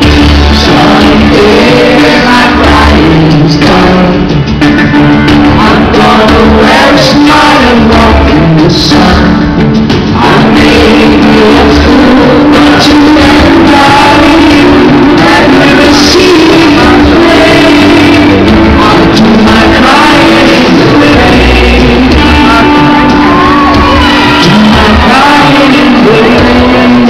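Live pop-rock band playing loudly over a concert hall's sound system: a male lead voice sings over electric guitar and the band, recorded very loud from the audience.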